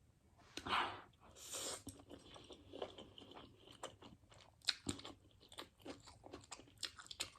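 A person chewing a mouthful of food close to the microphone, with two longer breathy swells in the first two seconds followed by many short, wet mouth clicks.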